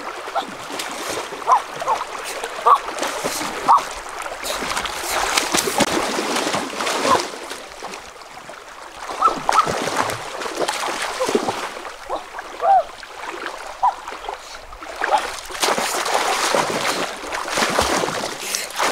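Water splashing as a person wades and crawls through a shallow river with their hands in the water, over the steady rush of the current. The splashing eases briefly partway through, then picks up again.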